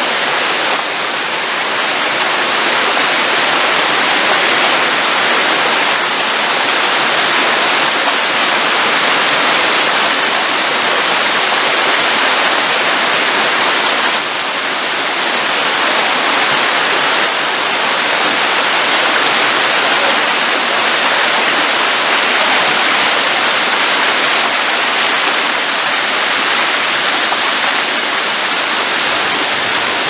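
Waterfall splashing down over rock ledges: a loud, steady rush of falling water.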